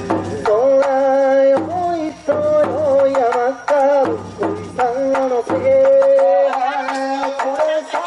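Bon-odori ondo music: a solo singer's long, wavering melody over a large barrel-shaped taiko drum struck with wooden sticks, giving sharp repeated beats.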